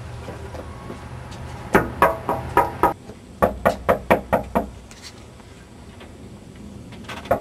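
Knuckles knocking on a sliding glass door in two quick rounds, about five knocks and then about six.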